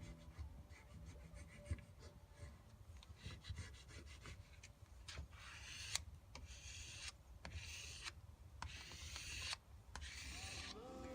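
A vinyl decal being rubbed down onto a window through its transfer sheet: faint, repeated rubbing strokes, heavier in the middle of the stretch.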